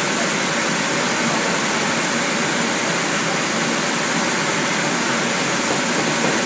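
Flexographic printing press for plastic film running at speed, a loud, steady, even mechanical noise of the rollers and the moving film web.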